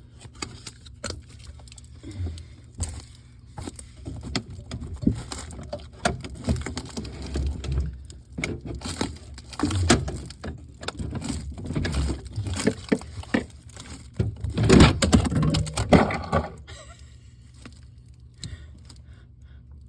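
Irregular clicks, knocks and scrapes of hands fitting a taped stack of pennies into a refrigerator ice dispenser's plastic mechanism, with a louder, denser run of knocks about three-quarters of the way through.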